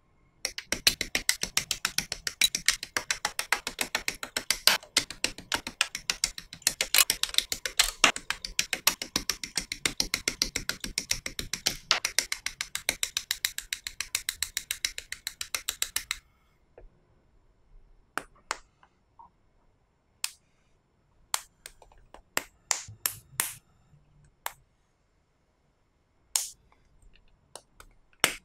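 Hard plastic model-kit parts clicking: a rapid run of sharp clicks, about ten a second, that stops suddenly about two-thirds of the way in. After it come a dozen or so separate clicks as parts are handled and pressed together.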